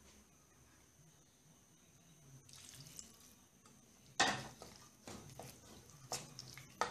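A metal spoon stirring wet, oily mango pickle in a steel pan: wet scraping and knocks of the spoon against the pan. The loudest scrape comes about four seconds in, followed by a few shorter clicks.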